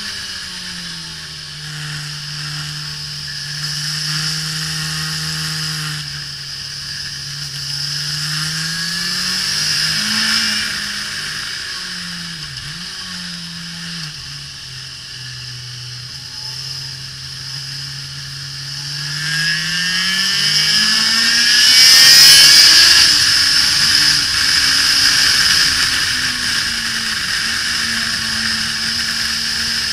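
Suzuki GSX-R1000 K5 inline-four engine under way on track, its pitch falling and rising again and again through corners and gear changes, with heavy wind rush over the microphone. The loudest stretch, with the most wind, comes about two-thirds of the way through as it pulls hard.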